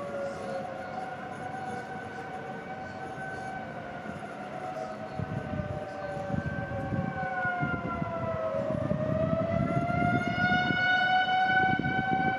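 Outdoor tornado warning sirens wailing, more than one at slightly different pitches; the tones sag and then climb again about two-thirds of the way through. A low rumbling noise grows louder underneath in the second half.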